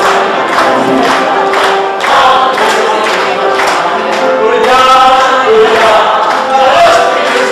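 Mixed choir of men's and women's voices singing a German song over a steady beat.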